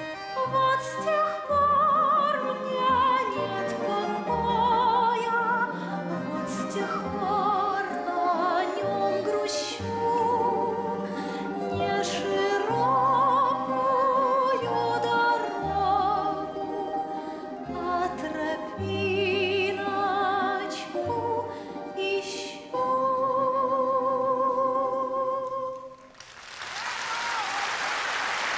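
Orchestral music with a solo singing voice with strong vibrato, ending on a long held note. A short pause follows, then audience applause starts near the end.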